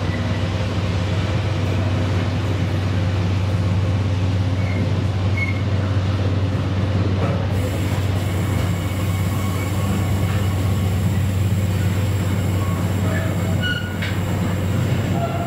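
Container wagons of a freight train rolling past at close range: a loud, steady rumble of steel wheels on rail, with a few brief high wheel squeaks.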